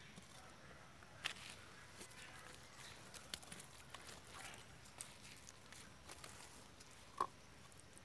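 Faint scraping and small clicks as a machete blade drags wet soil around a seedling, with hands patting it down. There is a sharper click about a second in and another short, sharp sound near the end.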